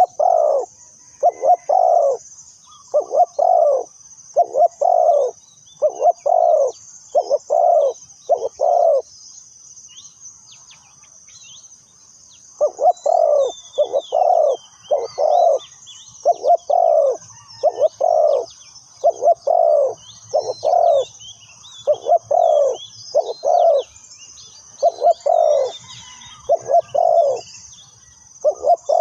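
Spotted dove cooing over and over in short groups of coos, with a pause of a few seconds about a third of the way in. A steady high hiss and faint chirps of other small birds sound behind it.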